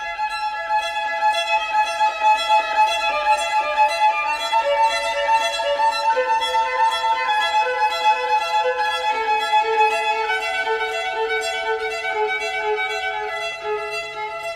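Background music: a melody of long held notes that steps gradually lower in pitch.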